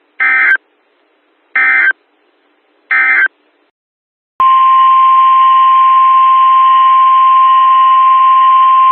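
Three short, equal bursts of Emergency Alert System digital data tones, the end-of-message code closing an alert. After about a second of silence, a loud, steady, single-pitch EAS attention tone starts about four and a half seconds in and holds.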